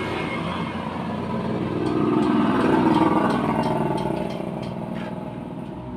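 A motorcycle engine passing by, growing louder to a peak about three seconds in and then fading, its pitch dropping after the peak.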